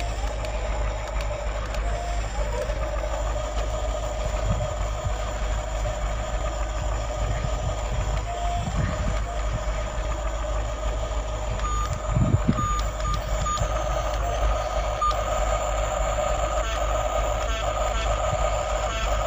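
Toy construction vehicle's electronic sound effect: a steady, beeper-like tone that goes on throughout. About 12 seconds in come a few short higher blips and a low thump.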